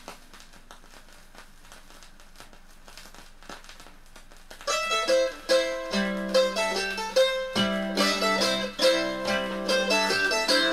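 Vinyl LP surface noise in the silent groove between tracks: a faint hiss with scattered crackles. About four and a half seconds in, the next track starts with plucked strings, and a bass line joins about a second later.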